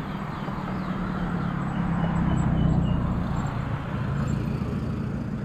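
Road traffic: a vehicle driving past on a road bridge, its rumble swelling to a peak a little past halfway and then fading.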